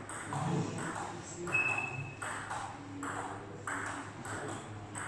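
Table tennis rally: a celluloid ball pocking off the table and the players' rubber-faced bats in a quick, regular series of sharp clicks, with hall echo.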